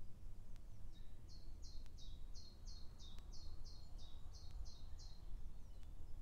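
A woodland songbird singing a quick run of about a dozen repeated high notes, lasting about four seconds, over a low steady rumble.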